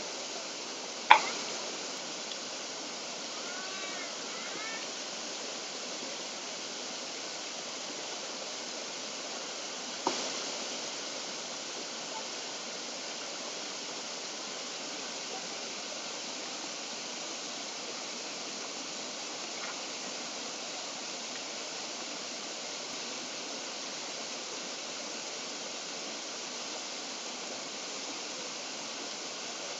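Steady rush of a stream flowing over rocks. A steel ladle clinks sharply against a large metal cooking pot twice, about a second in and about ten seconds in.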